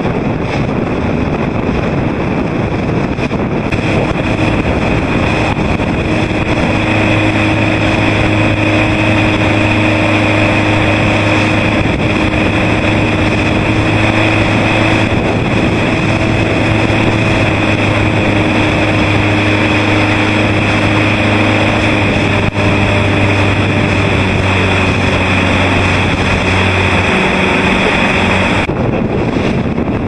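Wind buffeting the microphone over a motorboat engine running at a steady speed. The engine hum comes in a few seconds in, holds one pitch, and fades near the end.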